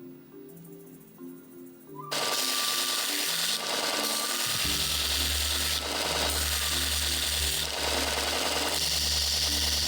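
Soft background music, then about two seconds in a power tool starts running with a loud, rough, even noise that pulses slightly. A low motor hum joins it about halfway through.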